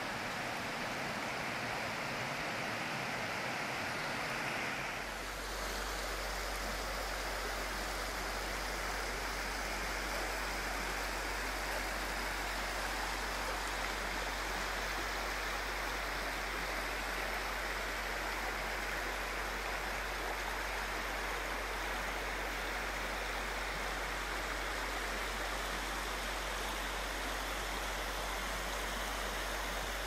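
Shallow rocky mountain stream running over riffles, a steady rush of water. A low steady hum joins underneath about five seconds in.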